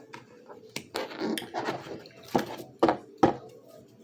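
A tarot deck being shuffled and handled: a soft rustle of cards broken by several sharp slaps and taps of the cards.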